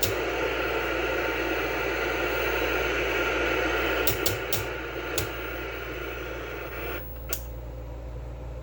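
Static hiss from a Truetone Personal 75 tube television's speaker over a steady low hum. A few sharp clicks come about four to five seconds in, and at another click about seven seconds in the hiss drops away to a quieter level.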